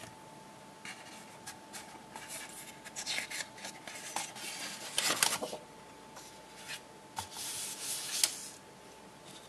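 Stiff card and paper sheets sliding and rubbing against each other as they are handled, a run of short scrapes and rustles, with the loudest slide about halfway through and a sharp one near the end.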